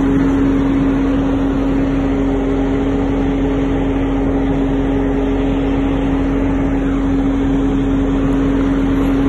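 Semi truck's diesel engine running steadily, a constant drone that holds the same pitch throughout.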